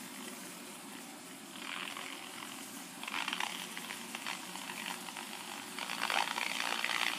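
Radio tuned off-station, giving out hiss and crackling static with a faint steady hum; the crackle grows stronger about three seconds in and again near the end.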